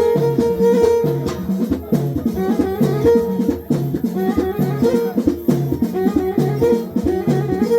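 Instrumental passage of a modern Amazigh (Berber) pop song: a stepping lead melody over a steady repeating drum beat.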